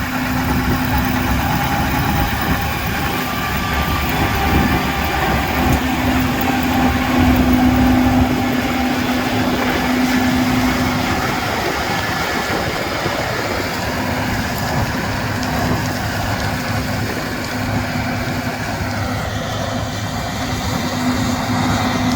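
Case IH 7140 Axial-Flow combine running steadily: a loud, even machine rush with a constant low hum through it.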